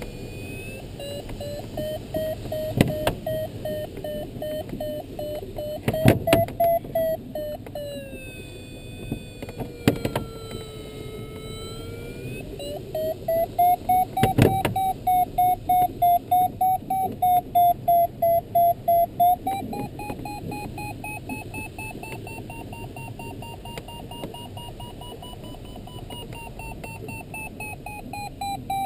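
A sailplane's audio variometer. Its tone glides up and down in pitch: it sinks to a low, steady tone about a third of the way in, which signals sinking air. It then rises and breaks into rapid beeps, about three a second, which signal climbing in lift. Under it is the steady hiss of airflow in the cockpit, with a few sharp knocks.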